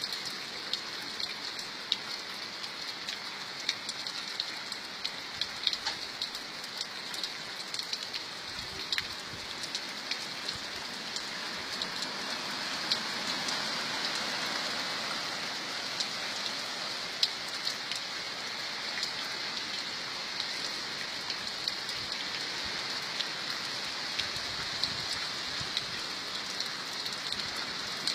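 Steady rainfall: a constant hiss with frequent sharp ticks of single drops striking close by. It swells a little about halfway through.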